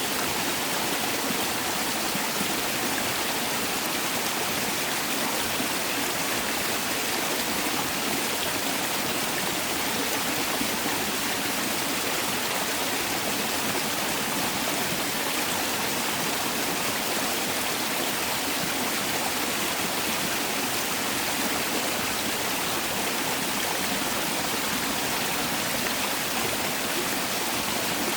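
Mountain valley stream running steadily over rocks, a continuous rushing of water without a break.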